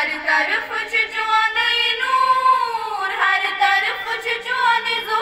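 A small group of schoolgirls singing a prayer song together into a microphone, one melody line in unison with long held notes. The voices come in suddenly at the start.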